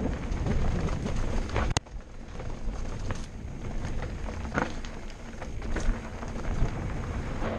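Mountain bike descending a rocky dirt trail: tyres rolling and crunching over loose stones with a steady rumble, and scattered sharp knocks and rattles of the bike over bumps, the sharpest about two seconds in.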